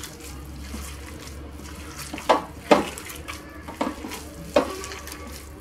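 Raw minced-meat kefta with grated carrot, zucchini and onion being squeezed and kneaded by hand in a glass bowl: soft wet squelching, with a few louder squishes in the middle.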